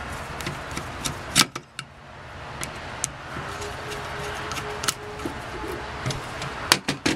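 Screwdriver turning a small screw in a Rochester Monojet one-barrel carburetor, with scattered sharp metal clicks and ticks over a steady background hum.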